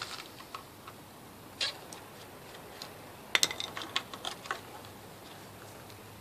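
A few sharp clicks and light taps over a quiet background, most of them in a quick cluster about three and a half to four and a half seconds in.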